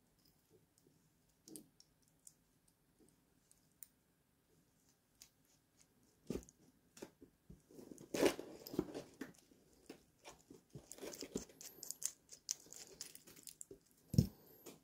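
Small metal clicks, taps and scratchy rattling from handling a metal watch bracelet and a screw-type link removal tool. There is a knock about six seconds in, a busier stretch of scraping and clinking in the middle, and a sharp knock near the end.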